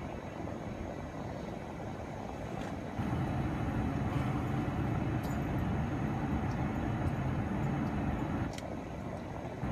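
Low, steady vehicle rumble heard from inside a stopped car, growing louder about three seconds in and easing slightly near the end.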